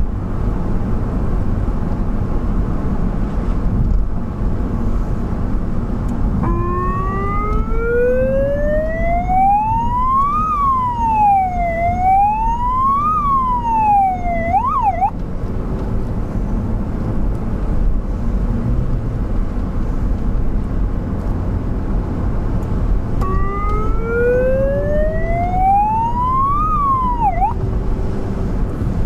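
Emergency vehicle's siren sounded twice: each time it winds up from a low pitch to a high wail, sweeps down and back up, and is cut off after a quick yelp. Steady engine and road noise of the moving vehicle runs underneath, heard from inside the cab.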